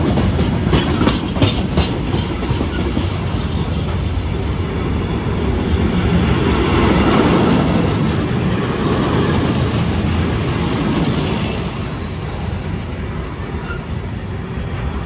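Intermodal freight train's wagons rolling past at close range: a steady rumble of wheels on rail, with a run of sharp clicks over rail joints in the first couple of seconds. The rumble eases a little near the end.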